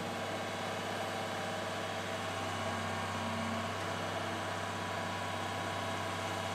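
A mobile crane's engine idling steadily, a low, even hum.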